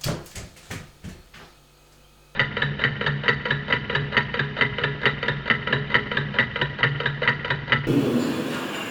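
A few fading knocks, then, after a short silence, a rhythmic film-score cue: a quick plucked or ticking pulse at about four to five beats a second over a steady low tone. It gives way to a softer, noisier wash near the end.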